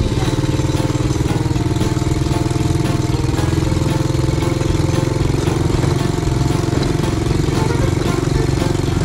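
ATV engine running steadily while riding, with an even level throughout.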